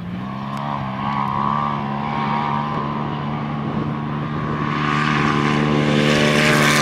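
Turbocharged side-by-side UTV engine (a 168-hp Turbo S) under hard throttle, holding one steady high-revving note and growing steadily louder as the machine comes closer.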